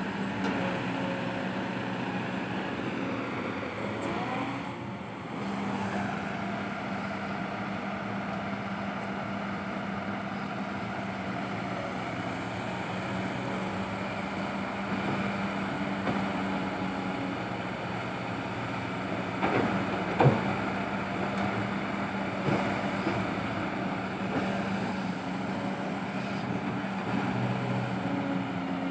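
Kobelco SK200-8 Super XM hydraulic excavator's diesel engine running steadily under load while the bucket digs soil, dipping briefly about five seconds in. A sharp knock about twenty seconds in, with a few lighter clicks around it.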